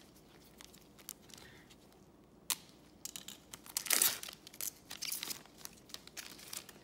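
A Garbage Pail Kids trading-card pack wrapper being torn open and crinkled by hand: a few faint ticks, then about three seconds in a burst of tearing and crinkling that is loudest about a second later and keeps crackling to the end.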